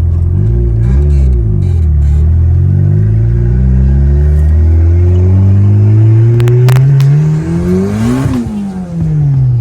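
Turbocharged Acura RSX's K20 four-cylinder engine under acceleration: a quick rev just after the start, then a long pull with the pitch climbing steadily for about six seconds before dropping sharply as the throttle closes, with a rush of hiss at the let-off.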